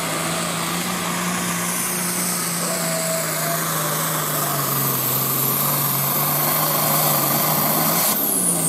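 Diesel engine of a farm-class pulling tractor running at full throttle under load, dragging a weight-transfer sled, with a high turbo whistle over it; the engine note steps down about halfway as the sled bears down. Near the end the whistle falls away steeply and the engine note drops.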